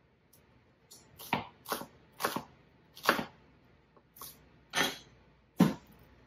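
Chef's knife slicing through an onion and knocking on a wooden cutting board: about seven separate chops at an uneven pace, the last one a heavier thud.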